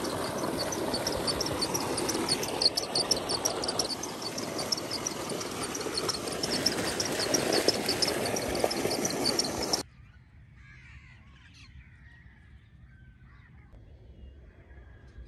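Water gushing hard out of a pump's discharge pipe into a pool and splashing as a man dunks his head under the stream, with a fast, regular high-pitched pulsing over the rush. It cuts off abruptly about ten seconds in, leaving faint bird calls.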